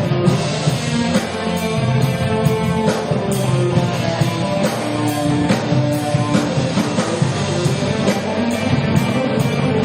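Live rock band playing: electric guitar over a drum kit, with regular cymbal and drum hits.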